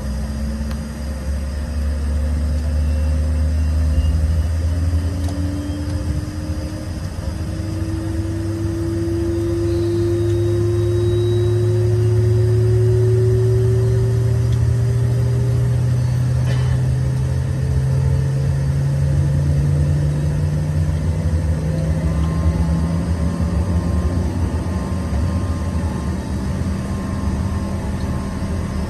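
The Rolls-Royce AE 3007 turbofan of an Embraer ERJ-145 spooling up, heard from inside the cabin: a low hum and whine rising slowly and steadily in pitch for about twenty seconds over a steady rumble.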